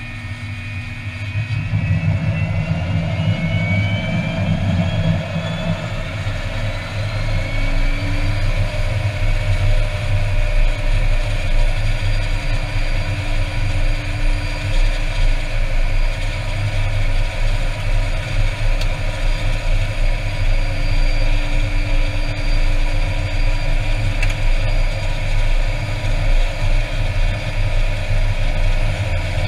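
Air Tractor 402B's Pratt & Whitney PT6A turboprop running on the ground. A high turbine whine rises in pitch over the first several seconds and then holds steady over a deep propeller and engine drone.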